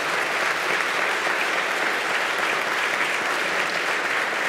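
Steady applause from a chamber full of legislators clapping.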